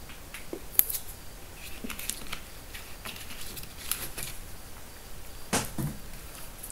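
A scattering of faint, short clicks and ticks, about a dozen at uneven intervals, over a low steady hiss.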